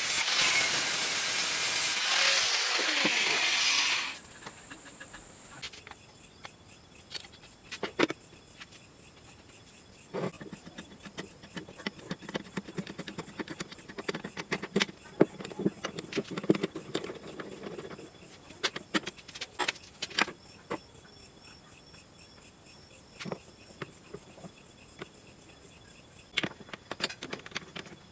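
A power tool runs, cutting wood, and stops suddenly about four seconds in. It is followed by scattered light clicks, knocks and rubbing as wooden and metal parts are handled.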